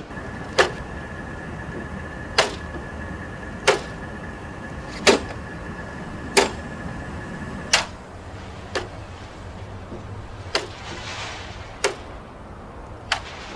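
A sharp click or knock repeating at a steady pace, about every second and a half, with a faint steady high tone under the first half that stops about two-thirds of the way through.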